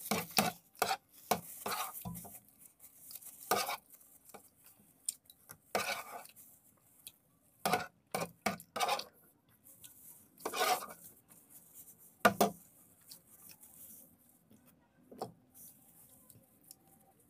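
Metal spoon scraping and clinking against a plate as macaroni is scooped up, in irregular strokes that thin out near the end.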